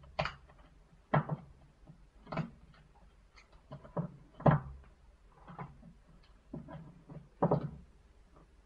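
Irregular plastic clicks, snaps and knocks as a BlackBerry Bold 9790's casing is pried apart with a plastic pry pick, with parts and tools set down on the work surface. About half a dozen sharper knocks stand out.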